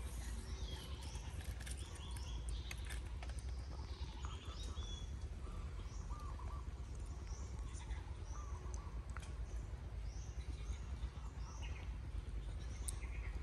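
Birds chirping and singing, many short calls through the whole stretch, over a steady low rumble, with a few scattered sharp clicks.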